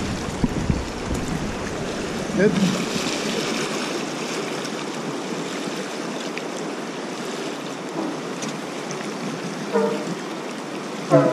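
Fast river water rushing around an inflatable raft: a steady wash of moving water.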